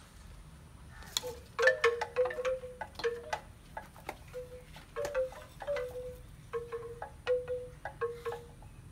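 Wind chime ringing: irregular light strikes from about a second in, each note ringing briefly at much the same pitch, several in quick succession at times.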